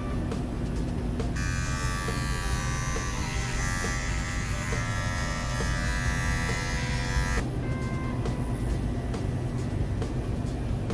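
Small blue Wahl electric trimmer running with a steady buzz while trimming the hair on a Giant Schnauzer's paw. The buzz turns louder and brighter from about a second in until about seven seconds in.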